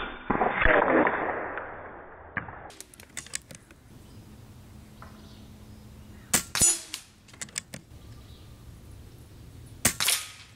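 Shots from a .22 Air Venturi Avenger PCP air rifle: three sharp cracks, one right at the start, one about six and a half seconds in and one near the end, each followed closely by a second smack. A few lighter clicks come between the shots.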